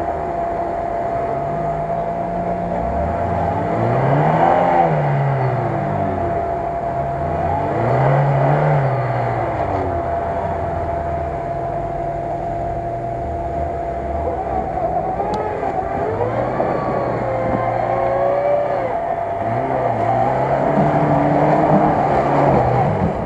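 Lada Niva engine revving up and falling back again and again as it labours through deep mud at low speed, with a steady thin whine under it.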